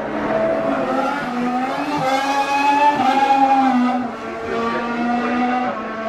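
2016 Formula 1 car's 1.6-litre V6 turbo hybrid engine running at speed on the circuit. The engine note rises and falls with throttle and gear changes and is loudest around the middle.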